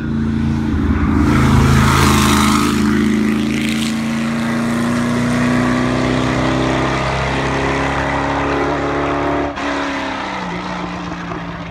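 Classic racing car at full throttle, passing close about two seconds in with a rush of exhaust and tyre noise. Its engine note holds high as it climbs away, then drops with a gear change near the end.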